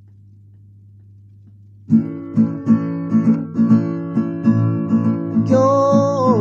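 A low steady hum, then about two seconds in an acoustic guitar starts strumming a rhythm, opening a song. Near the end a held note that bends downward joins the guitar.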